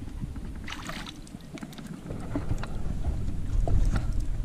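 Wind rumbling unevenly on the microphone out on a boat, growing louder near the end, with a few light knocks and clicks.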